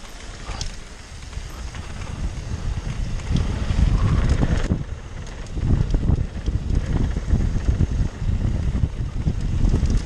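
Wind buffeting the microphone of a mountain bike's mounted camera during a fast downhill ride on a dirt trail, with the rumble of tyres on dirt and scattered rattling clicks from the bike. It grows louder about three seconds in as the speed builds.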